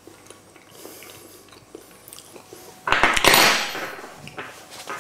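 Small clinks and scrapes of a metal spoon against cookware as a taste of mash is taken. About three seconds in comes a sudden loud hissing rush that fades over about a second.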